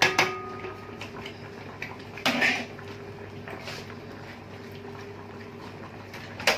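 Spoon and pot clatter as spices are added to a tomato sauce on the stove: a clink at the start, a brief scrape about two seconds in, and a sharp clink near the end.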